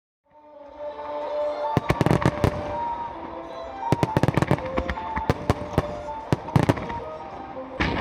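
Aerial fireworks going off in quick clusters of sharp bangs and crackles, over music with sustained notes. The sound fades in from silence.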